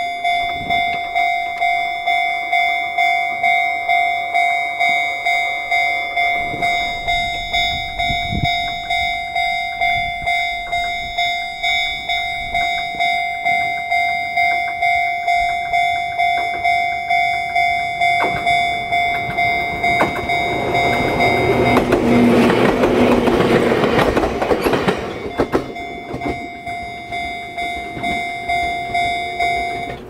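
Electronic level-crossing warning bell ringing in the 'Chichibu' tone, a steady repeating ding. A Jōmō Electric Railway 700-series electric train passes over the crossing from about twenty to twenty-five seconds in, rumbling and clattering over the rails. The bell stops right at the end as the crossing clears.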